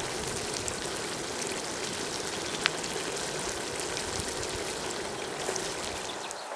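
Steady rush of water, with one sharp click about two and a half seconds in.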